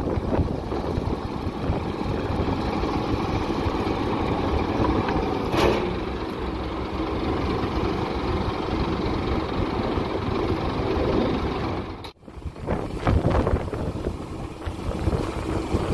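Volvo FE rear-loader garbage truck's diesel engine running steadily while the raised Leach packer body dumps its load, with a single knock about five seconds in and a brief drop-out near the end.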